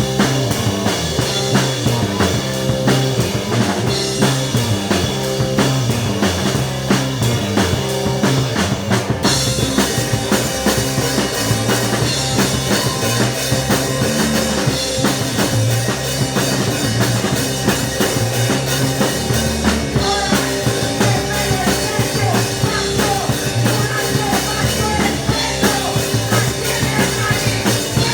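Live punk rock band playing loud and dense, with a pounding drum kit, a moving bass line and guitars.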